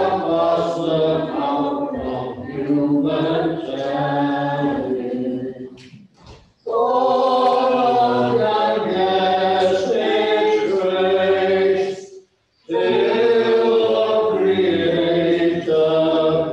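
A small choir singing a slow, chant-like piece in long phrases, with short breaks for breath about six and twelve seconds in.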